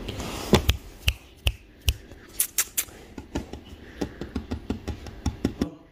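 Kittens scrambling and wrestling on a blanket: an irregular run of sharp clicks and scratches with a rustle at the start, and no meowing.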